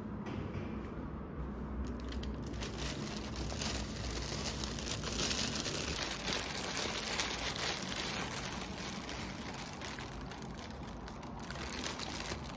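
A thin translucent wrapper around a bread bun crinkling and rustling as hands unwrap and handle it. The crackling is dense, strongest around the middle, and eases off near the end.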